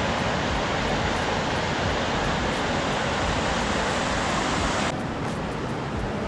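Rushing water of a creek cascade running high after heavy rain: a loud, steady rush of white water. About five seconds in the sound shifts and becomes less bright.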